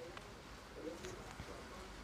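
Faint clicks and handling noise as a helmet's shipping box is opened, heard over a steady low background hiss.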